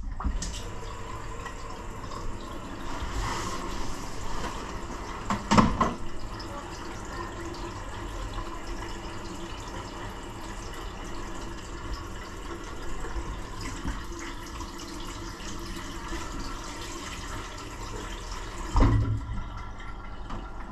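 Steady rush of water running through a Vaillant ecotec boiler's pipework, with a knock about five and a half seconds in and another near the end.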